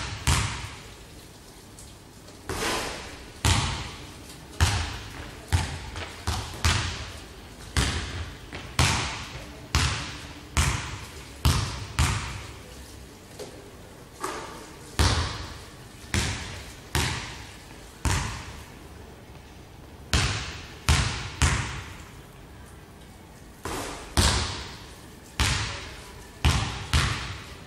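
Basketball bouncing on a hardwood gym floor, one sharp bounce about every second with an echo after each. The runs of bounces break off for a few seconds now and then.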